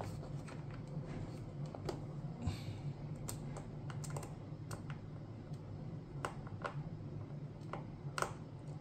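Faint, irregular small clicks and ticks as a screwdriver drives a small screw back into a 3D-printed plastic enclosure, over a low steady hum.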